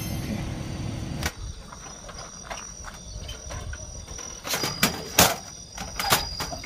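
A black collapsible camp grill box being unfolded and set down on grass: a few sharp plastic-and-metal knocks and clatters in the second half. Before that, a low background rumble cuts off about a second in, and a faint steady insect chirp runs underneath.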